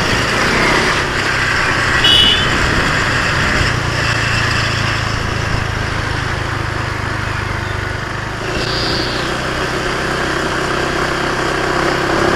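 Small 125cc motorcycle engine running steadily, with wind rush over the helmet microphone, and a brief high chirp about two seconds in.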